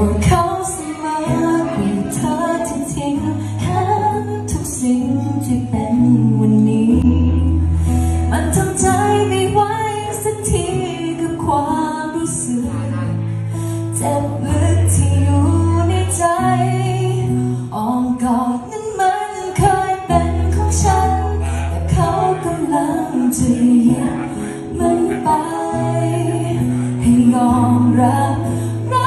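A woman singing into a handheld microphone over a musical accompaniment, with long sustained bass notes under her phrases.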